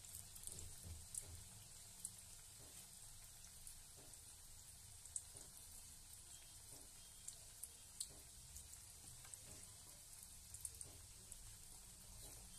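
Manchurian balls deep-frying in a kadai of oil: a faint, steady sizzle with scattered small crackles and pops.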